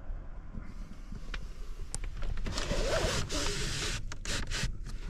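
A rasping slide lasting about a second and a half, starting about two and a half seconds in, followed by several sharp clicks, over a low steady rumble.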